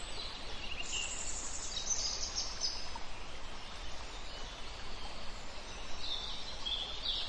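Forest ambience: a steady hiss with birds chirping here and there.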